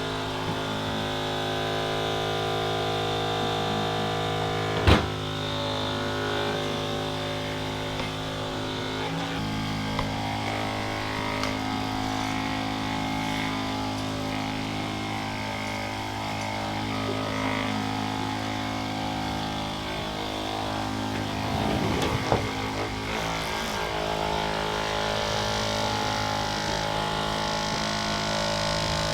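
Handheld electric massager running steadily on the leg with a constant buzzing hum. One sharp click comes about five seconds in.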